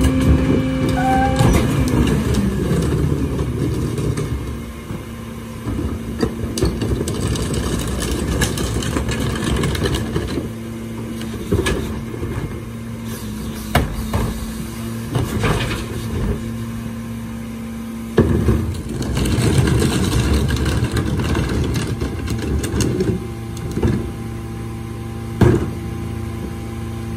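Mack LR garbage truck engine dropping from a raised speed to a steady idle about two seconds in, then idling, with knocks and clatter of plastic carts and trash being tipped into the Leach Alpha III rear-loader hopper.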